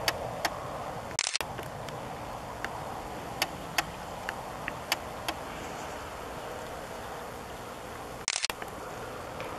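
Handling and mechanism noise from a Canon SX50 HS camera: scattered sharp clicks, and two brief rushes of high-pitched noise about a second in and near the end, over a steady background hiss.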